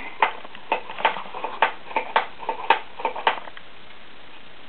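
Hand pump of a homemade toy car wash being worked to spray rinse water, clicking about three times a second before stopping.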